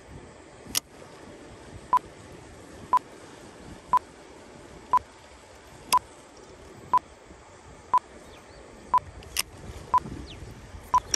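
Short electronic beeps at one steady pitch, one a second, ten in a row, with two sharp clicks, over faint wind and water noise.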